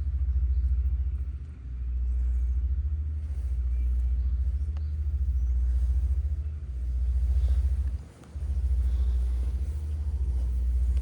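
A cat purring close to the microphone: a steady, deep, fast-pulsing rumble that dips briefly every second and a half to two seconds as the cat breathes.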